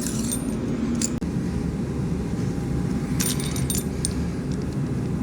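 Small pipe cutter being turned around a tube to cut it to length: a steady low scraping rumble with a few light metallic clicks.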